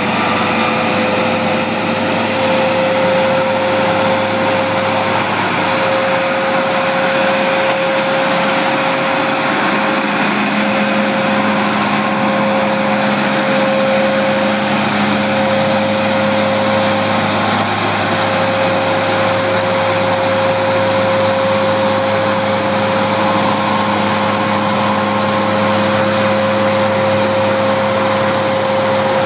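Vac-All vacuum street sweeper working: a steady whine over a continuous rush of air.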